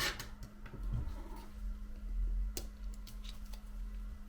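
A few light clicks and taps of small tools and parts while an iPhone 7 is being taken apart, the sharpest about two and a half seconds in, over a steady low hum.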